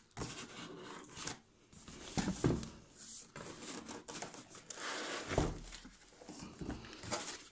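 Cardboard laptop-box packaging being handled: the box lid and flaps scrape and slide, and the white foam padding rubs, in irregular rustling strokes with a couple of soft knocks.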